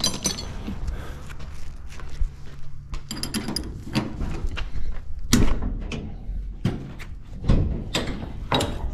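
Irregular metal knocks and clanks as a 13 mm wrench works the fasteners and the side access covers of a New Holland CX5090 combine are opened.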